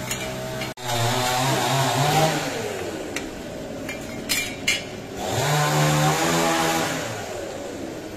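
Water poured into a hot cast-iron kazan of fried meat and carrots, sizzling and hissing as it steams. A loud motor-like drone rises and falls in pitch twice over it.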